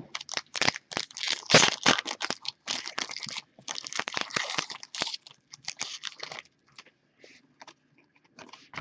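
A trading card pack's wrapper being torn open and crinkled by hand: a dense run of crackling rustles that thins out after about six seconds to a few soft ticks as the cards are handled.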